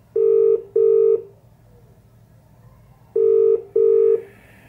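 British telephone ringing tone heard down the line: two double rings, each a pair of short steady tones, about three seconds apart. It is the sign that the transferred call is ringing at the other end and not yet answered.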